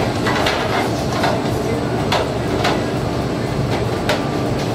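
Steady din of a school kitchen serving line, with a low hum and faint voices, broken about four times by sharp clatters of plastic trays and utensils on the stainless-steel counter.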